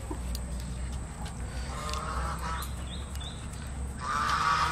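Domestic fowl calling twice: a shorter call about two seconds in and a louder one near the end.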